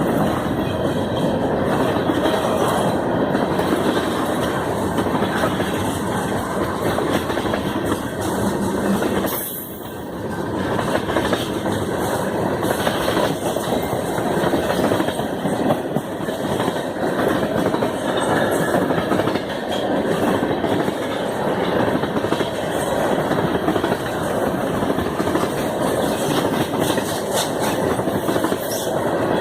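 Canadian Pacific freight train 293's cars rolling past on the rails, a steady, loud rumble, briefly quieter about ten seconds in.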